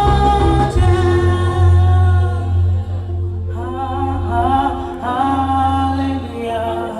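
A choir singing, with a steady low bass underneath the voices.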